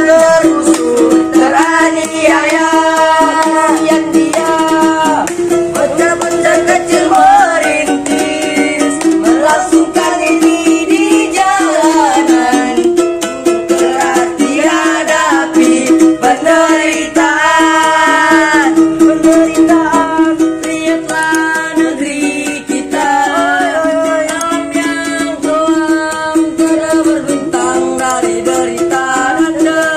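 Street buskers' song: a voice singing a melody over a strummed ukulele, keeping a steady strumming rhythm.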